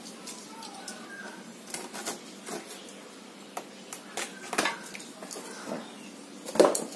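Cardboard packaging being slit with a utility knife and pulled open: scattered scrapes, crackles and taps, with a louder cardboard crackle near the end.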